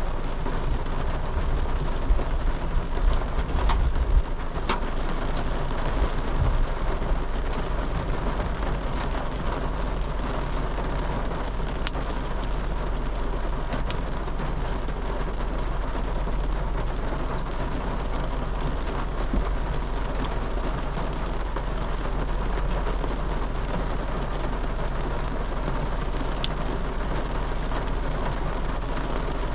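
Heavy rain pelting a car, with scattered sharp ticks of small hailstones striking it. A louder low rumble comes about two to four seconds in.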